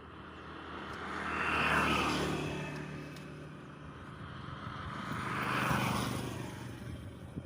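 Two road vehicles drive past one after the other, each engine and tyre sound swelling and fading away, the first loudest about two seconds in and the second about six seconds in.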